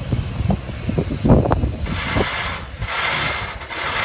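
Cog railway steam locomotive clanking, then letting off steam in three hissing bursts about a second apart in the second half.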